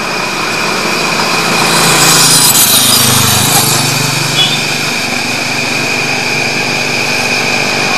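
A motor vehicle passing on the road, growing louder to a peak about two to three seconds in and then fading, over a steady high-pitched whine.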